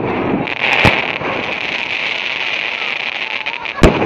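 Aerial fireworks bursting: two sharp bangs about three seconds apart, over a steady hiss.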